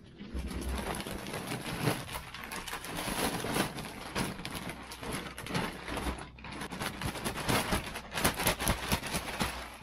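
Black plastic sack of horse manure and wood shavings being upended and shaken out: a dense crackle of plastic rustling and muck spilling onto the heap, with a short lull about six seconds in.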